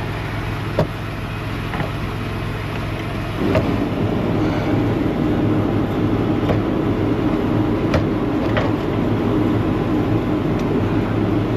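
A steady low machine hum, with a louder running noise that comes in suddenly about three and a half seconds in and holds, and a few light metallic clicks.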